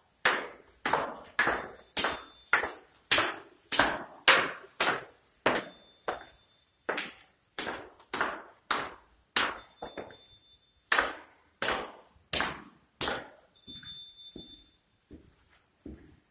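Footsteps going down a hard stairwell, about two steps a second, each step echoing in the empty building. The steps turn much softer about 13 seconds in.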